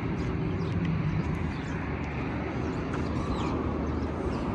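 Road traffic: a steady rumble and rush of passing cars that swells slightly.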